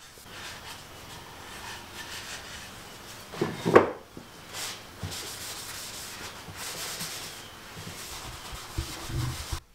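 Blue paper shop towel rubbing and wiping across oiled cherry wood boards, buffing off the excess walrus oil finish. A single louder knock comes about three and a half seconds in.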